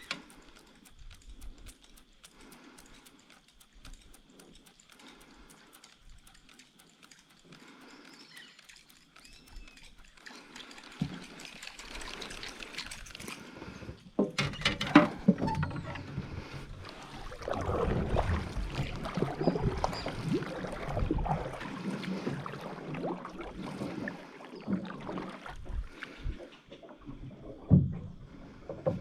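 Water splashing and sloshing around a small boat, with a sharp knock about fourteen seconds in and uneven splashing after it. The first third is quieter, with a steady high whine and a few faint chirps.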